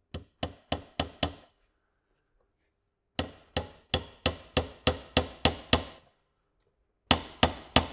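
A hammer drives a 1.5-inch nail down through a corner joint of a wooden beehive roof frame. The blows come in three runs of quick taps, about three a second, with short pauses between runs.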